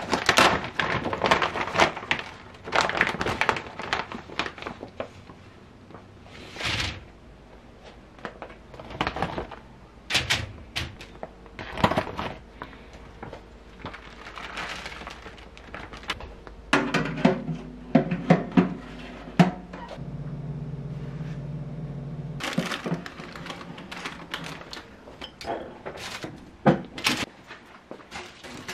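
Plastic food bag crinkling and being torn open, then frozen crispy chicken pieces shaken out of the bag onto parchment paper in a wire air-fryer basket, with rustling and light knocks. A low steady hum sounds for a few seconds past the middle, and more crackling handling comes near the end.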